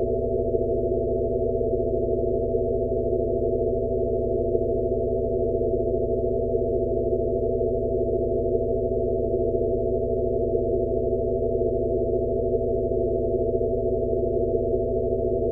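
Steady, low-pitched synthesized drone of layered pure tones, a sound-therapy 'Rife frequency' tone played for tinnitus relief, with a faint slow throb about every second and a quarter.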